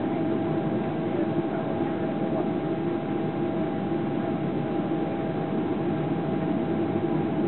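Steady cabin noise inside a Boeing 777-200LR on final approach: a low, even rush of engine and airflow noise with a couple of faint steady hums above it.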